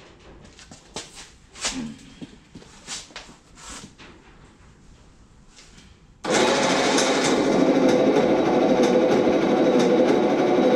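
A few scattered clicks and knocks, then about six seconds in a Bedford engine starts being cranked over by its starter motor, a loud steady mechanical run at low cranking speed, turning the engine so the MegaSquirt ECU can read the crank and cam signals for sync.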